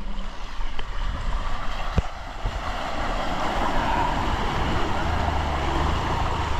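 A car driving, its engine running under a steady low rumble of tyre and track noise, with a sharp knock about two seconds in.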